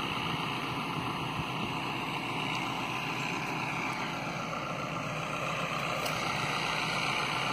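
JCB JS200 crawler excavator's six-cylinder diesel engine running steadily while the bucket cuts into a gravel bank.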